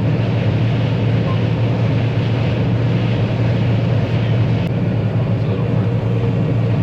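Combine harvester running steadily as it cuts corn: an even, low engine and machinery drone with no changes in pace.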